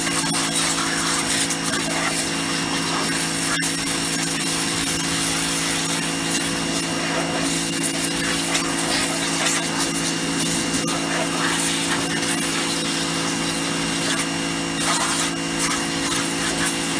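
Titan pressure washer running steadily: its motor hums under the hiss of the water jet spraying onto a plastic sun lounger.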